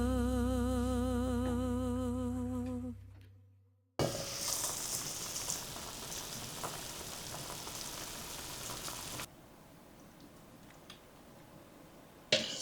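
A sung ballad ends on a long held note with vibrato that fades out over the first three seconds. After a sudden cut, food sizzles and fries in a hot pan for about five seconds, then gives way to quiet room tone with one short knock near the end.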